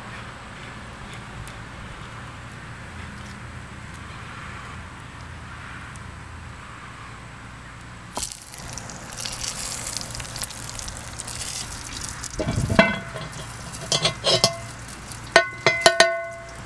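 Cast-iron Dutch oven hissing over hot coals from about halfway through, then several sharp metal clanks with short ringing tones as the cast-iron lid and wire bail handle knock against the pot, the loudest near the end.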